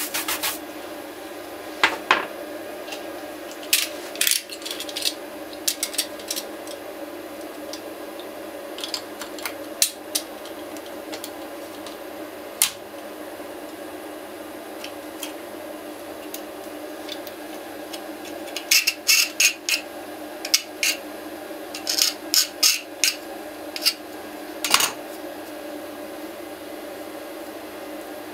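CNC 6040 router spindle running with a steady hum, with scattered sharp clicks and clinks over it, bunched in a flurry about two-thirds of the way through.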